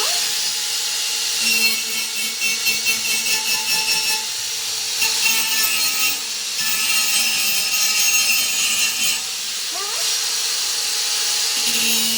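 A tool cutting or grinding steel: a harsh hissing rasp that comes and goes in spells.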